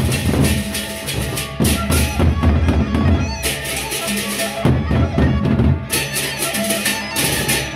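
Sasak gendang beleq ensemble playing: large double-headed barrel drums beaten in interlocking rhythm, with clashing hand cymbals over them.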